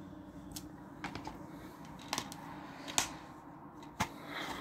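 A plastic DVD case being handled and shut: a handful of sharp plastic clicks and taps spread out over a few seconds.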